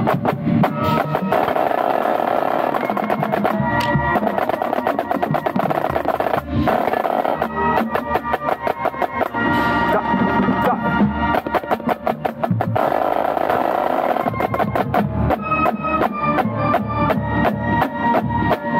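Marching band playing, heard from the center snare drummer's position: rapid snare drum strokes and rolls sound close and loud over the band's held pitched notes.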